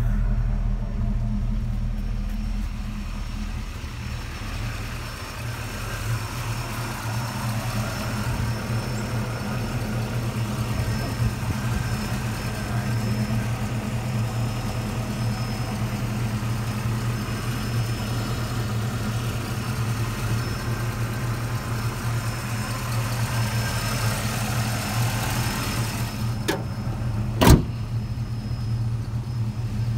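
A 1979 Pontiac Trans Am's V8 idling steadily, with one sharp click near the end.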